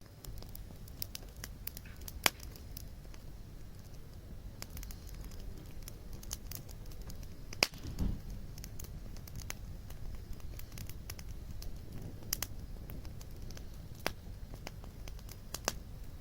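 Wood fire crackling in a campfire pit, with scattered sharp pops, a few of them loud, over a steady low rumble.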